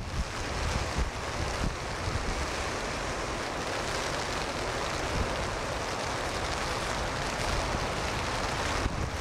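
Strong wind buffeting the microphone over heavy surf breaking and rain, a steady rushing noise with gusty low rumbles.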